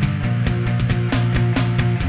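Instrumental electric guitar music played live, with held low notes under a steady beat of about four hits a second.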